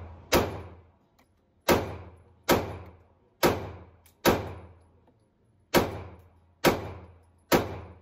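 Glock 48 9mm pistol fired eight times in a slow, uneven string, roughly one shot a second, each report ringing out in the echo of an indoor shooting range.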